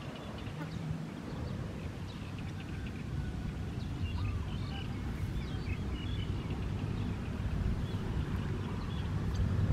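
Outdoor background of a low, steady rumble, like wind on the microphone, with faint scattered bird chirps above it.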